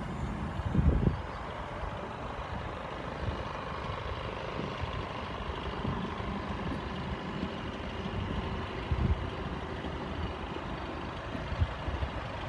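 Steady hum of motor-vehicle engine noise, with low bumps on the microphone about a second in and again near nine seconds.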